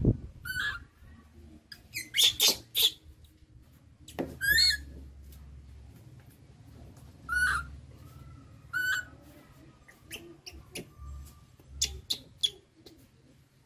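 Baby macaque giving short, high, squeaky calls, about five spread over the stretch, with a few sharp clicks and knocks near the end.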